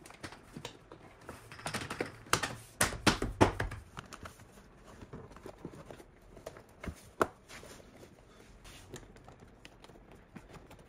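Scattered clicks, taps and knocks of hands working plastic door-sill trim with a plastic pry tool, in a busy cluster about two to three and a half seconds in and sparser after.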